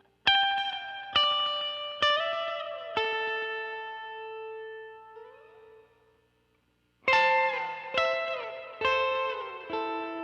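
Soloed electric guitar played through a Roland Space Echo–style tape echo, picking two short phrases of sustained notes, some sliding down in pitch. The first phrase dies away to a brief silence about six seconds in, and the second begins about a second later.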